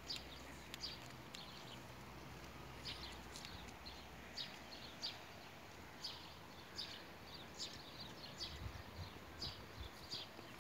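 Faint footsteps on a garden path, a light scuff or crunch at walking pace, roughly one step every half second to second, over a low outdoor hiss.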